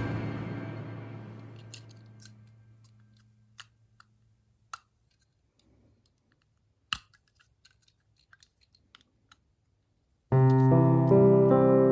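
Background music fading out, then a few separate sharp clicks in near silence. Piano music starts again near the end.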